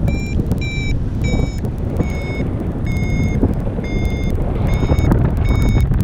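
Paragliding variometer beeping in lift: short beeps at a bit under two a second, which then slow to longer, slightly lower beeps about once a second, showing the climb weakening. Steady wind noise rushes over the microphone underneath.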